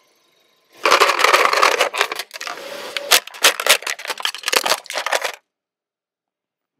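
Plastic toy car being crushed under a car tyre: loud, dense cracking and crunching with many sharp snaps, starting about a second in and cutting off suddenly.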